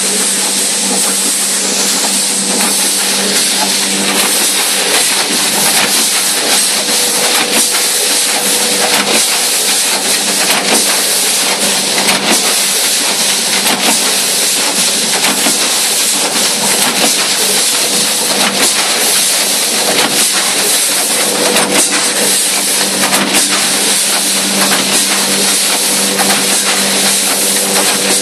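TOU rotary pre-made pouch packing machine running: a loud, steady hiss over a constant hum, with frequent irregular clicks and knocks from its pouch grippers and turntable.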